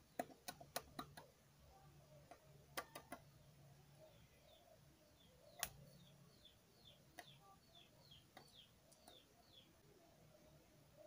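Near silence broken by a few sharp clicks: a cluster in the first second, two more about three seconds in, and a louder single click about halfway. Faint small-bird chirps, a run of short falling chirps about two a second, come in from about halfway.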